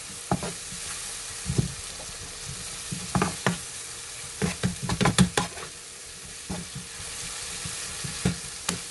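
Spice paste frying in oil in a nonstick frying pan, sizzling steadily while a plastic spatula stirs it, with short scrapes and knocks of the spatula against the pan, clustered in the middle.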